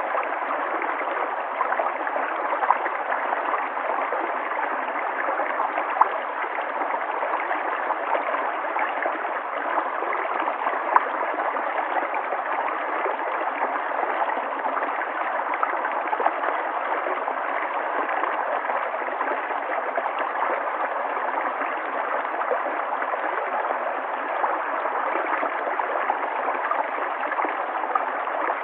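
River water flowing, a steady, even rush with a few brief louder blips scattered through it.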